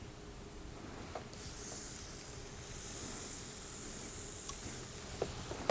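Galette batter hissing steadily as it is poured onto the hot plate of a Fri Fri electric waffle iron, starting about a second in.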